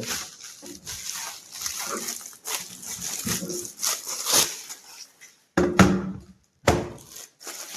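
Irregular rustling and handling noise as the wireless keyboard is picked up and handled, with many small knocks. Near the end come two short pitched sounds.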